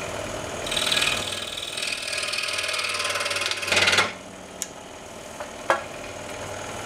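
Scroll saw running, its blade cutting through an oak block for about four seconds until the end is cut off, then running on without load. A few light clicks follow.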